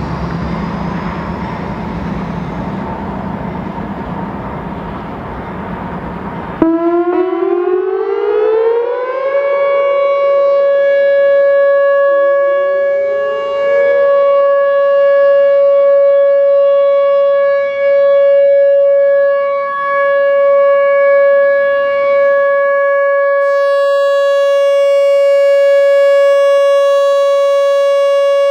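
A loud steady rumble for about the first six seconds stops abruptly, and a Whelen Vortex R4 outdoor warning siren winds up in a rising wail over about three seconds, then holds one steady tone for the alert signal. The loudness swells and dips as the rotating siren head turns, and a fainter second wind-up rises a few seconds after the first.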